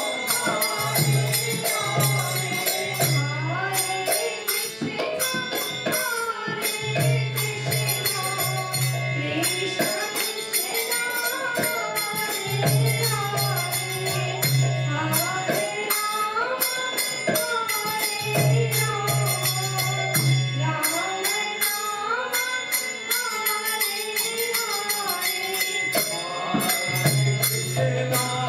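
Kirtan chanting: voices singing a devotional mantra to a harmonium, with a mridanga drum and small hand cymbals keeping a steady, even beat. A low harmonium tone comes and goes in blocks of about two seconds.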